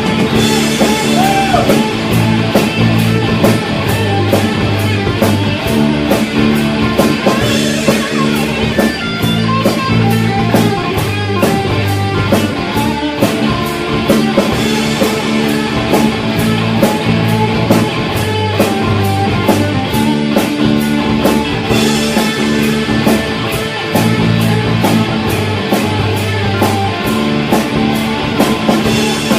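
Live rock band playing: electric guitars and bass over a drum kit keeping a steady beat.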